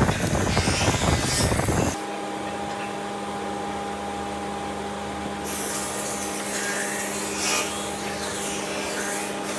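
Loud rumbling noise that cuts off suddenly about two seconds in, giving way to the steady hum of an electric power tool working wood, with faint scraping strokes over it.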